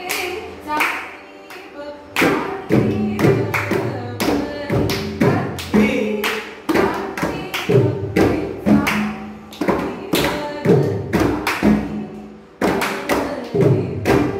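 Tuned hand drum played in a quick, even Carnatic rhythm, about three strokes a second, each stroke ringing with a low tone. The pattern is chatusra tisram: triplet strokes grouped in fours.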